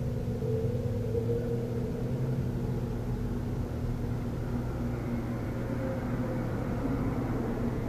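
A steady low engine rumble with a droning hum, growing a little fuller from about five seconds in.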